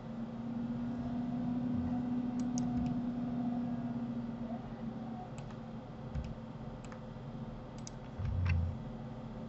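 Scattered sharp clicks of a computer mouse and keyboard over a steady hum, with a thump about eight seconds in.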